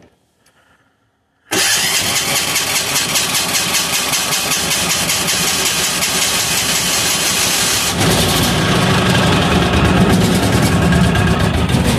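A 186FA single-cylinder air-cooled diesel engine starts up about a second and a half in and runs with a fast, steady beat. Its sound grows heavier and deeper about eight seconds in. It is running on filtered used synthetic motor oil topped up with diesel, with air pockets in the fuel line.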